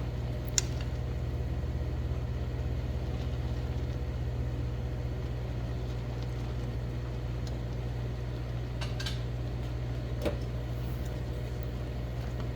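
Steady low machine hum in the kitchen, with a few short sharp clicks about half a second in and again around nine and ten seconds.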